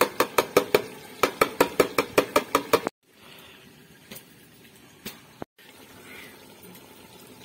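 A perforated metal skimmer spoon stirring curry in an aluminium pot, knocking and scraping against the pot wall about five times a second. The stirring breaks off abruptly about three seconds in, leaving a much quieter stretch of faint frying hiss with a couple of soft knocks.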